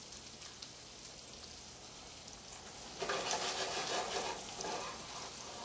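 Salmon fillet sizzling in hot oil and butter in a stainless steel frying pan, a steady sizzle that grows louder about three seconds in.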